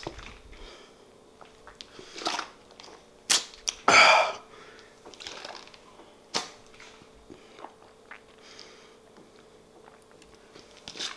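A man drinking from a squeeze sports water bottle: scattered short swallows and mouth noises between breaths, with one loud breathy burst about four seconds in.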